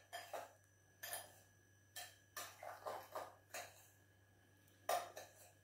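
Faint, short scraping strokes of a utensil stirring crushed digestive biscuit crumbs and sugar in a glass bowl, about one every second, the loudest about five seconds in.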